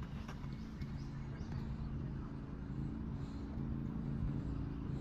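A low engine hum running steadily, with a few faint ticks at the start.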